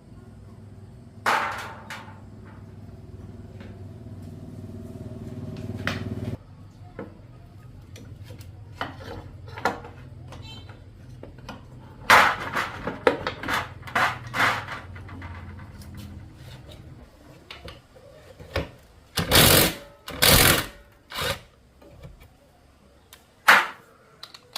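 Hand tools knocking and clanking on metal parts, over a steady low mechanical hum that eases about six seconds in and fades out around seventeen seconds; the loudest knocks come in a cluster near the end.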